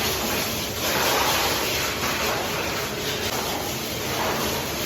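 Plastering trowel scraping and spreading plaster across a wall in repeated sweeping strokes, each stroke a rising and falling scrape.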